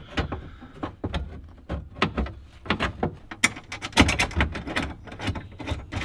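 A metal mounting plate being handled and bolted into a car's glove-box opening: a run of irregular small knocks, clicks and rattles of metal against the dash.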